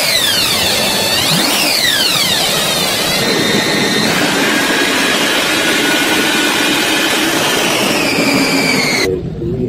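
Twin supercharged V8 engines of a speedboat running hard. A high whine falls and rises in pitch a few times over the first three seconds, then settles into a steady loud drone over a constant rush of noise, cutting off abruptly near the end.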